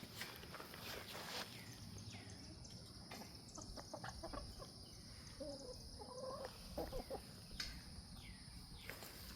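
Chickens clucking, a cluster of short calls in the middle.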